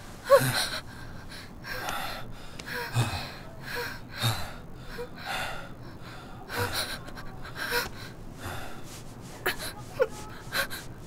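A young woman gasping and sobbing in short, strained breaths, about one a second, with brief whimpering cries between them.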